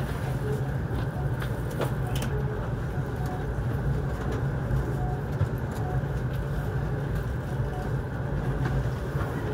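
Steady low rumble of an N700S Shinkansen train running, heard from inside the passenger cabin, with a couple of faint clicks in the first few seconds.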